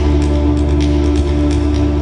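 Ambient electronic music played live: a deep sustained bass drone under steady held tones, with a scatter of sharp high clicks over it.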